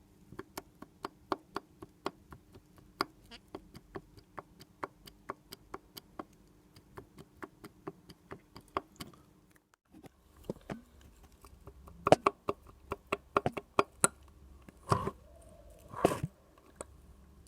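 Sharp metallic clicks of the left connecting rod on a Jawa 640 two-stroke twin being rocked up and down by hand, its big end knocking on a failed lower bearing whose needle cage has broken up. The clicks come regularly, about two to three a second, then stop. After a short pause come a few louder, irregular knocks.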